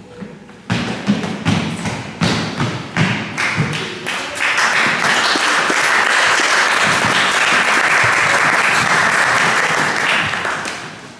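A run of thuds and knocks as the last stage fighters drop onto the wooden gym floor, then dense audience applause for about six seconds that fades near the end.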